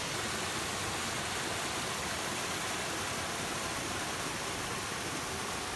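Steady, even rush of water running close by, a constant hiss with no breaks.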